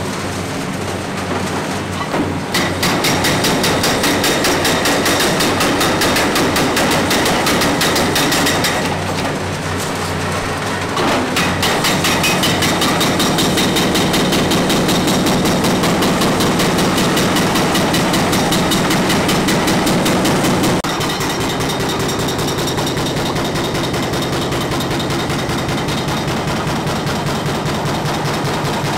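Hydraulic breaker hammer on an excavator pounding concrete in a rapid, steady rhythm, with the machine's diesel engine running underneath. The hammering breaks off briefly about a third of the way in, and gets quieter about two-thirds in.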